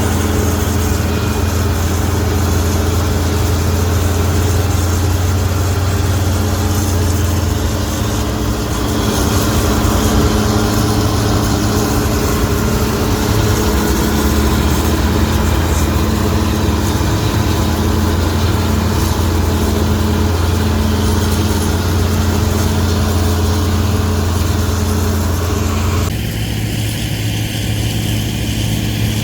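Heavy diesel farm machine running steadily with a deep, continuous engine drone; the sound changes abruptly about three seconds before the end.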